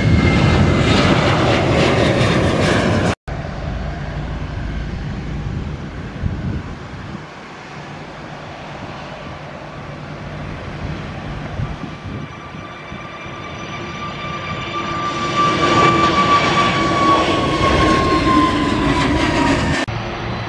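Jet airliners' engines on take-off. A loud rush with a falling whine cuts off abruptly about three seconds in. A quieter rumble then builds to a second loud pass with a falling whine, which cuts off abruptly near the end.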